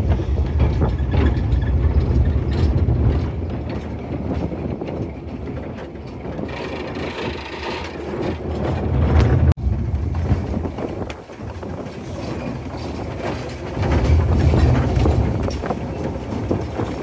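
A miniature railway train running along its track, heard from its open carriage: the wheels clatter on the rails, and gusts of wind buffet the microphone several times.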